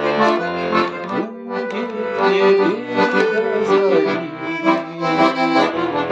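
Bayan (Russian button accordion) playing a slow song accompaniment in chords and melody, with a voice singing over it.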